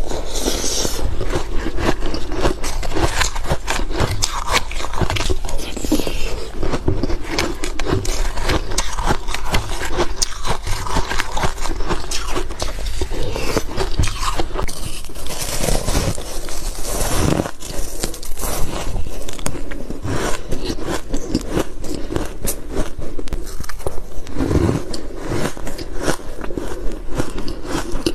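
Close-miked biting and chewing of powdery frosted ice and ice blocks: continuous dense crunching and crackling.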